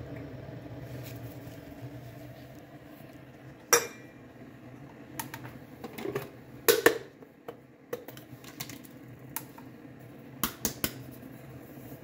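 Sharp metal clicks and clinks from a stainless-steel coffee-grinder grounds cup being taken off an electric coffee grinder and handled: one click about four seconds in, a louder cluster around seven seconds, and a few more near the end. A low steady hum fades out in the first two seconds.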